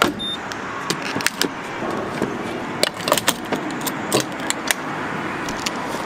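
Gas pump fuel nozzle being handled and pushed into a car's filler neck, with many sharp metallic clicks and clatters, over a steady rushing hiss of fuel flowing. A short high beep comes from the pump near the start.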